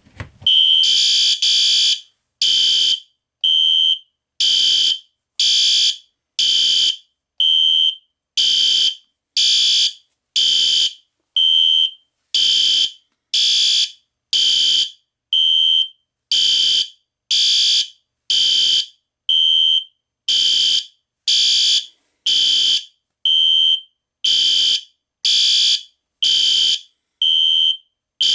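Two System Sensor SpectrAlert fire alarm horns, a SpectrAlert Classic and a SpectrAlert Advance, sounding together in loud, shrill blasts that repeat about once a second. They run unsynced, with no sync module, so their blast patterns overlap out of step.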